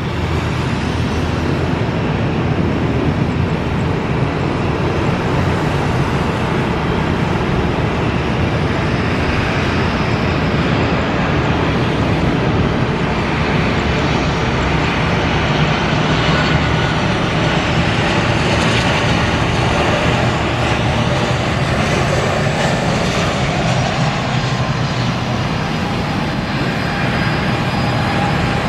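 Boeing 737-900ER's CFM56-7B turbofan engines on final approach and landing: a steady, loud rushing jet noise with a faint high whine, ending as the aircraft touches down on a wet runway.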